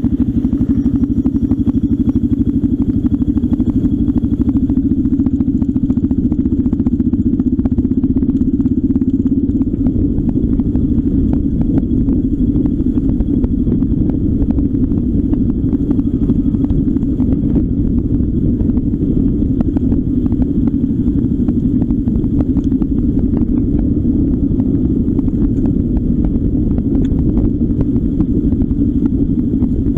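Motor vehicle driving along a rough gravel track: a steady engine drone with constant rattling and clatter from the broken surface.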